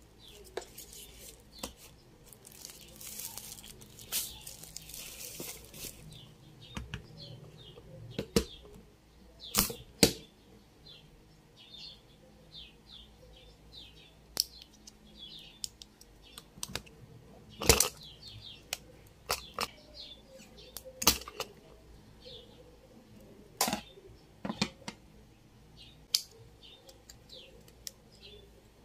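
A plastic selfie-stick tripod being unpacked and handled: a plastic bag rustles for the first few seconds, then sharp clicks and snaps come as the stick and its phone clamp are handled, the loudest a little before halfway and near the end. Birds chirp faintly in the background.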